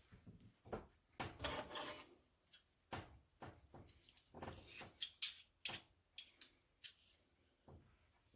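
Kitchen utensils and dishes being handled: scattered light knocks and clinks, with a scraping rub about a second in and a quick run of sharper clinks around the middle.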